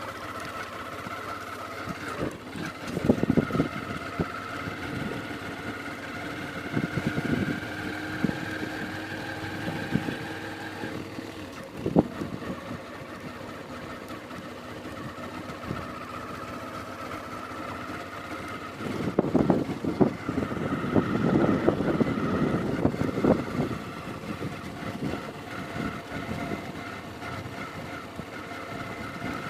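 Motorbike engine running steadily on the move, with several louder knocks and clattering stretches through the ride.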